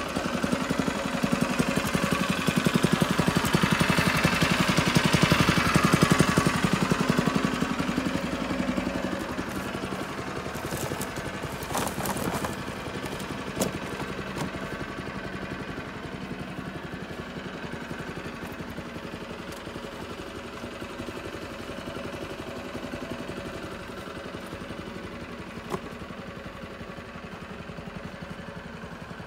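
Engine idling steadily, louder for the first several seconds and then quieter, with a couple of short knocks.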